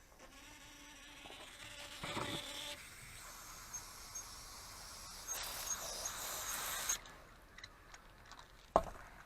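Garden tap opened and water hissing through a hose. A faint steady whine sounds in the pipe during the first couple of seconds, and the hiss swells twice before stopping about seven seconds in. A single sharp knock comes near the end.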